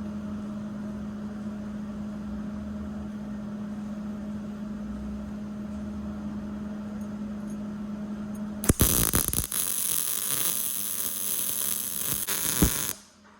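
A steady electrical hum, then about eight and a half seconds in a welding arc strikes and crackles and hisses loudly for about four seconds before cutting off.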